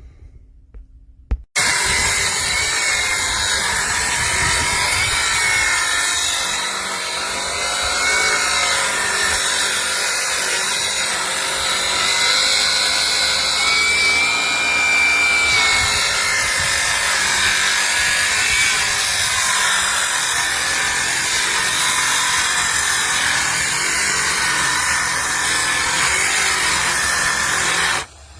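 Metabo HPT 36V MultiVolt cordless 7-1/4 inch circular saw cutting wood, the motor's whine dipping and rising in pitch as the blade loads up in the cut. It starts abruptly about a second and a half in and stops suddenly shortly before the end.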